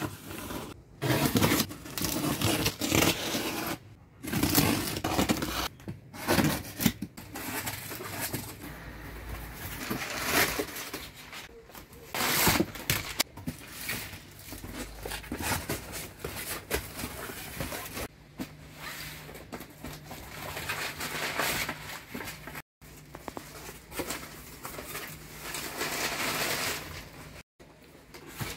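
Packing tape being torn off cardboard boxes and the boxes being opened and handled: irregular tearing, scraping and rustling of cardboard.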